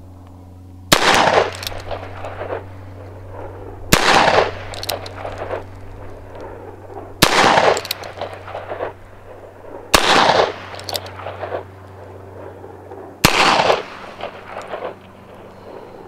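Five single shots from a replica Remington 1858 New Army revolver fitted with a Howell conversion cylinder, firing .45 ACP cartridges, spaced about three seconds apart. Each crack trails off over a second or so.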